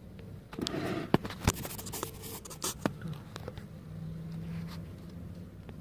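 Handling noise on a workbench: a few sharp clicks and taps with short bouts of scraping as a small plastic-cased PTC thermistor and multimeter test leads are moved about.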